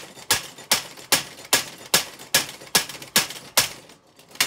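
Wooden-framed DaVinci cam power hammer running empty, its steel striker hitting the bowl-shaped dishing die about two and a half times a second. The blows stop near the end, with one last blow just before it ends.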